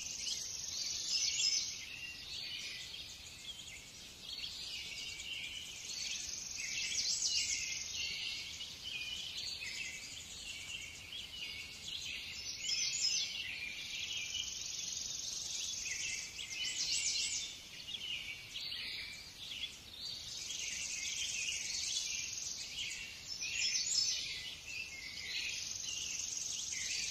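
Small birds chirping and twittering steadily, a busy high-pitched chatter with nothing low beneath it.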